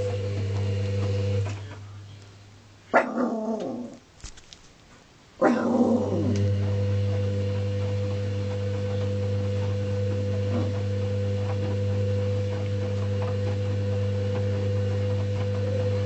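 A washing machine's steady hum dies away about a second and a half in, and a Chihuahua gives two sudden cries that fall in pitch, about three and five seconds in. The machine's hum comes back right after the second cry and runs on steadily.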